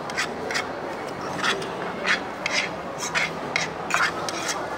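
Metal cutlery scraping and clicking on a plate as someone eats: about a dozen short, irregular scrapes over a steady background hum.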